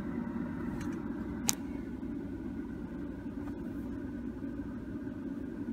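Steady low rumble of a car heard inside its cabin, with one sharp click about one and a half seconds in.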